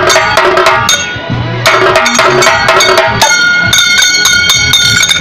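Karadi majalu folk drumming: large barrel drums beaten in quick, dense strokes. About three seconds in, a steady high ringing joins them.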